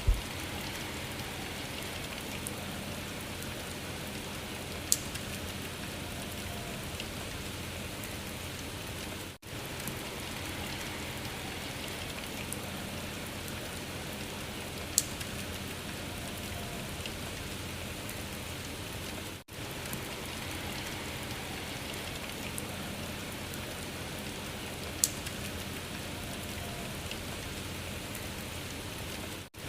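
Steady rain falling on a surface, looped: a sharp single tick comes about five seconds in and then every ten seconds, and the rain briefly drops out every ten seconds where the recording repeats.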